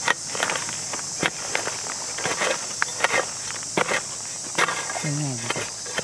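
A steady high-pitched drone of forest insects, with irregular dry crunches and scuffs in leaf litter and soil, some close and sharp, a few each second.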